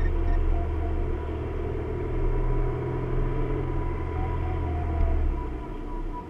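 Car engine and road noise heard from inside the cabin: a steady low drone that eases off about five seconds in.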